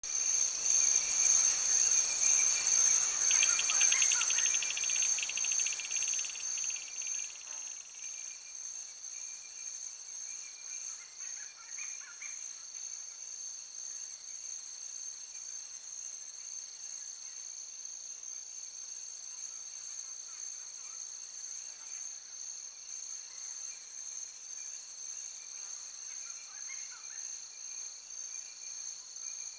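Steady high-pitched insect chorus shrilling in several even tones, louder for the first seven seconds, with a fast pulsing trill a few seconds in. A few faint short chirps come through about twelve seconds in and again near the end.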